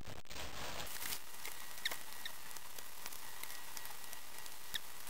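A person chewing a burger: a few faint, sharp mouth clicks over a steady background hiss.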